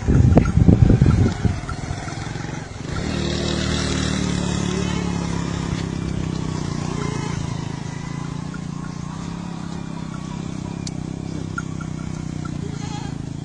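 Wind buffeting the microphone for the first second or so, then an engine running steadily at a low, even pitch.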